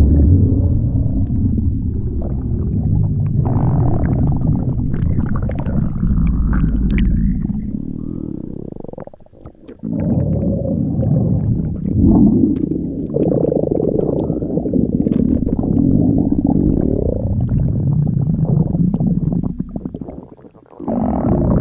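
Stomach growling: long, low, gurgling rumbles that shift in pitch, breaking off briefly about nine seconds in and again near the end.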